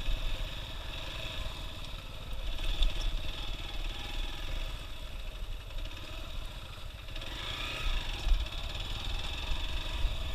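Motorcycle engine running at low revs on an off-road trail, the sound swelling and easing a little, with some clatter.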